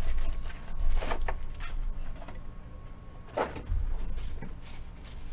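A cardboard trading-card box and its packs being handled and opened by hand: scattered rustles, taps and scrapes, the loudest about three and a half seconds in.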